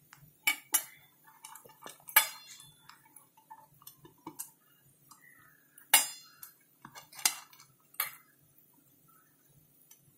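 Steel idli plates and a silicone basting brush knocking against each other and a glass bowl while the plates are greased with ghee: a series of scattered sharp clinks, the loudest about six seconds in, with faint brushing between them.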